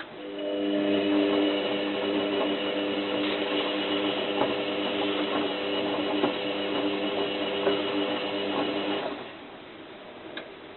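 Zanussi FLA1002W washing machine's motor turning the drum during the wash: a steady motor hum with a high whine and a few light knocks, starting just after the beginning and stopping about nine seconds in.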